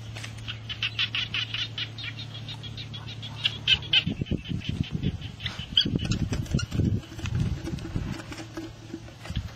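A run of quick high chirps in the first few seconds. Then irregular scuffing and rustling as a gloved hand works into an eel's burrow in dry soil and drags the eel out.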